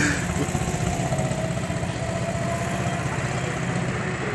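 Small go-kart engine running steadily as the kart drives on around the track, its drone easing off slightly as it goes.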